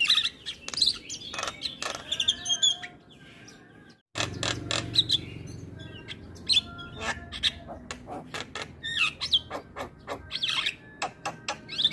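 Javan myna singing a fast, varied song of chirps, whistles and sharp clicks, with a brief break about four seconds in.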